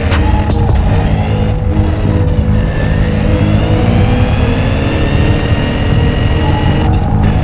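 Electric RC car's motor whining at speed, its pitch rising and falling as the throttle changes.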